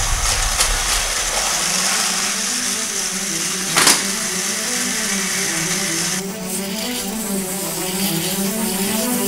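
Battery-powered TrackMaster toy train motors whirring on plastic track, with one sharp clack about four seconds in. The whirring drops away about six seconds in. Background music with a stepping melody runs underneath.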